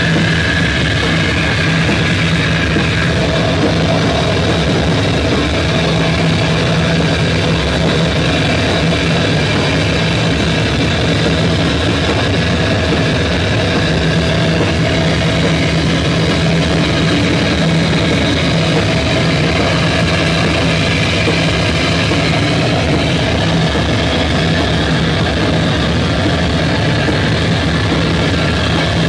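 Electric guitar played through a heavily distorted amplifier: a loud, dense, unchanging wall of noise with a steady low note held underneath.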